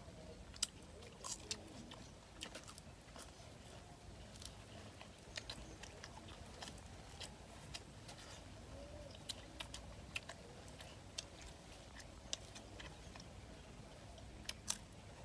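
Faint chewing of cooked duck organs and vegetables, with scattered small clicks and crunches over a quiet background.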